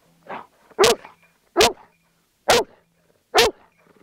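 Search-and-rescue dog barking in short, sharp barks, about one a second: a softer one first, then four loud ones. This is its trained alert that it has found the person hidden in the snow.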